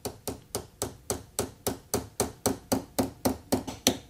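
Small metal-headed hammer tapping in quick, even light blows, about four a second, driving a marking pin into the wooden beam of a mortise gauge.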